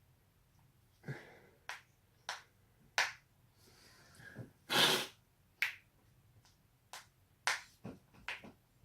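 Spinal joints cracking: about a dozen short, sharp pops at irregular intervals, the loudest and longest just before the middle.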